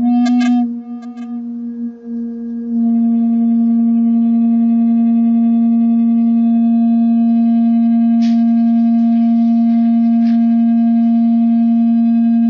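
A steady electronic tone with overtones, held at one pitch right after a rising sweep, of the kind a tone generator plays through a loudspeaker for a resonance demonstration. A few sharp clicks come about half a second and a second in, and a cluster of them between about eight and ten seconds in.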